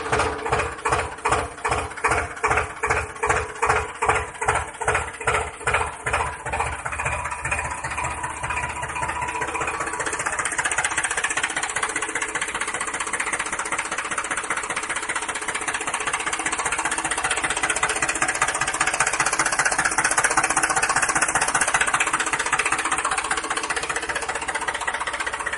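Tractor engine running with a slow, even knocking for the first eight seconds or so, then settling into a steady, faster chug.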